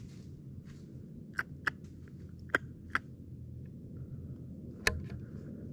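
Five sharp clicks over a steady low rumble of wind and handling noise, in two close pairs and then a louder single click near the end.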